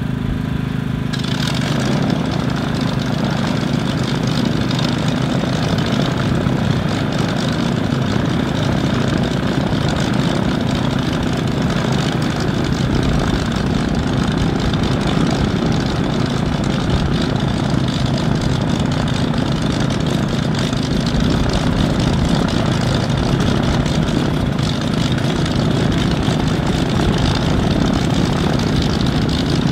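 Vought F4U-5N Corsair's Pratt & Whitney R-2800 radial engine running at a steady idle on the ground after start-up. Its low rumble grows fuller and harsher about a second in and then holds even.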